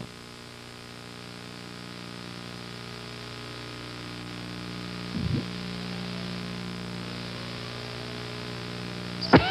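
Steady electrical hum under a hiss of tape static from a blank stretch of VHS tape, with a brief crackle about five seconds in and a sharp click near the end.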